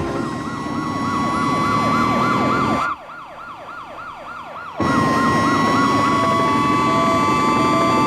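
Cartoon police sirens yelping, a fast rise-and-fall about four times a second over a steady high tone. The sound drops much quieter for about two seconds in the middle. From about five seconds in, the yelping gives way to a steady tone with short repeated beeps.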